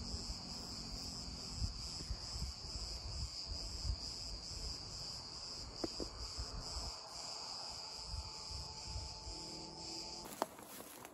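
Cicadas singing in a steady, high-pitched chorus that cuts off suddenly near the end, with intermittent low rumble underneath.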